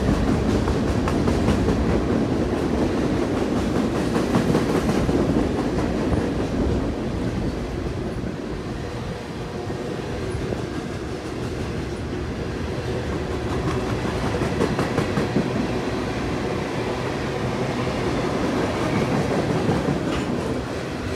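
Freight train cars (boxcars, tank cars and covered hoppers) rolling past on steel rails: a continuous rumble and rattle of wheels and cars, with clickety-clack over the rail joints.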